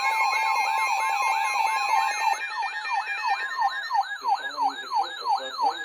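Emergency alert tones from several receivers sounding over one another. A siren-like rising sweep repeats about four times a second. Under it, a steady two-note attention tone stops about two seconds in, and a higher warbling tone starts about a second later.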